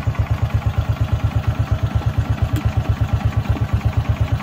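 Honda XRM110's single-cylinder four-stroke engine idling steadily, a fast even putter of about eleven beats a second, with its headlight, park light and tail light switched on as a load on the charging system.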